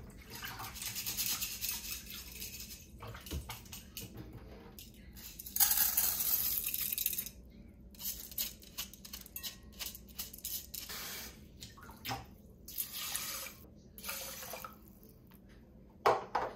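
Soaked rice poured and shaken from a stainless mesh strainer into a rice cooker's inner pot: several rustling, scraping bursts of grains sliding against metal, the longest about six seconds in, with a knock near the end.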